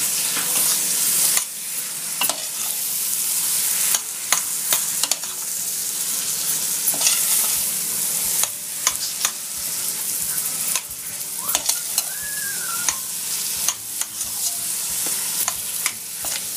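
Raw minced meat sizzling as it fries in hot oil and spices in a stainless steel pot, stirred steadily with a metal spoon that scrapes and clinks against the pot many times.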